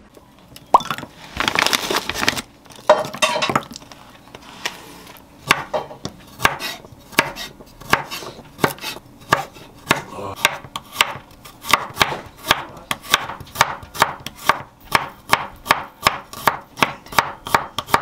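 Chef's knife slicing peeled garlic cloves thin on a wooden cutting board. It makes evenly spaced knocks on the board that quicken to about three a second, after a few seconds of irregular handling noise.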